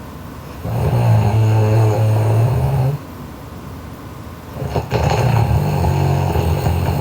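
A sleeping girl snoring loudly: two long, low snores of about two and a half seconds each, the second starting about four seconds after the first.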